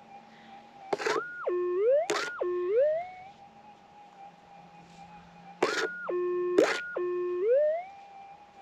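Minelab GPX 6000 gold detector's steady threshold hum, broken twice by a target signal: the tone jumps high, drops low and slides back up, twice in a row each time, with sharp clicks at the jumps, as the dirt in a hand or scoop holding the target is passed over the coil.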